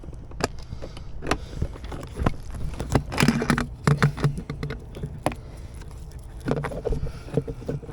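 Handling noise while wiring connectors are worked into place: scattered sharp clicks and knocks of plastic plugs and trim, with rustling of cables between them.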